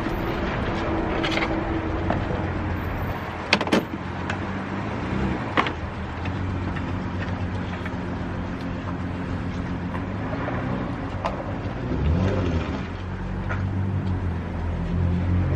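A motor vehicle engine running steadily, its pitch dipping and rising briefly twice, with a few sharp knocks partway through.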